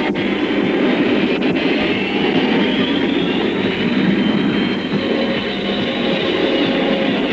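Cartoon jet airliner engines running, a dense rumble with a whine that rises in pitch from about two seconds in, over background music.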